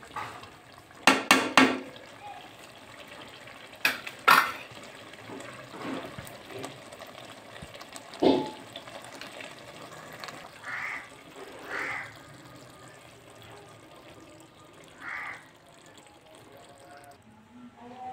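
Metal ladle stirring a thick curry in a large metal pot and knocking against the pot's side: a quick run of four sharp clangs about a second in, two more around four seconds, then a duller knock. Later a few short calls sound in the background.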